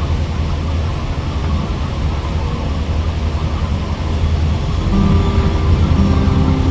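Heavy machinery running steadily with a low rumble. A few faint steady tones join in about five seconds in.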